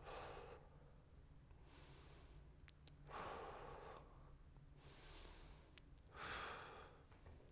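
A man's slow, faint breaths, about five soft rushes of air in and out a second or so apart, paced breathing while holding a stretch.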